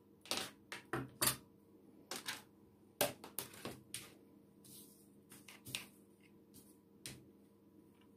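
Irregular clatter of plastic kitchen things being handled: a plastic cutting board slid and set down on a tabletop, and a plastic oil bottle handled and uncapped, in a dozen or so short knocks and clicks.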